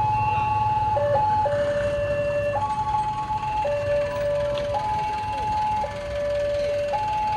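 Railway level-crossing warning alarm sounding an electronic two-tone signal, a low and a high tone alternating about once a second, while the barrier arms come down for an approaching train.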